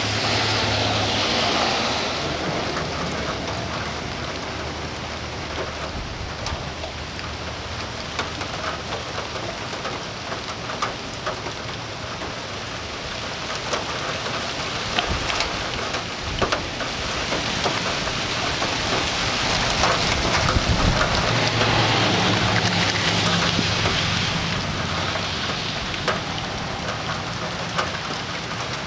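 Steady summer thunderstorm rain falling, with sharp drop ticks scattered through it. A low rumble of thunder swells about two-thirds of the way through, the loudest stretch.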